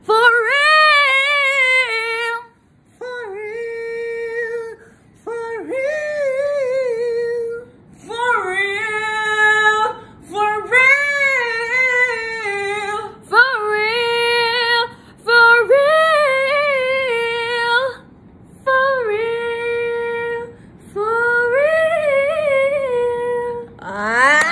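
A high voice singing a cappella in about nine short phrases. Each phrase swoops in pitch and then holds a steady note, with brief pauses between them.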